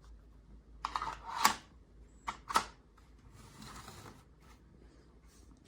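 A few sharp clicks and knocks of something being handled, in two clusters about one and two and a half seconds in, then a brief soft rustle near four seconds.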